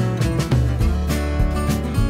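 Background music with a strummed acoustic guitar over a bass line and a steady beat.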